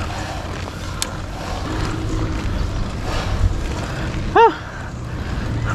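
Wind rumble on the microphone and low road noise from riding a bicycle. About four and a half seconds in comes one short, high chirp that rises and falls in pitch.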